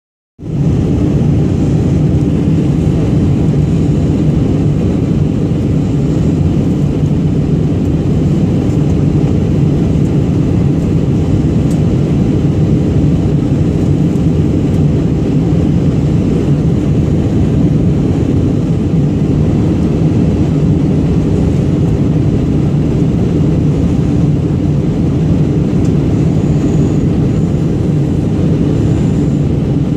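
Steady cabin noise of a jet airliner in flight, heard from a window seat over the wing: an even, low rumble and rush from the engines and the airflow.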